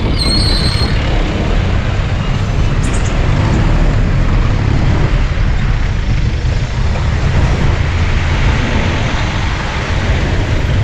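Road traffic heard from a motorcycle riding through congested traffic: a steady, loud low rumble of engines, with a brief high-pitched tone in the first second.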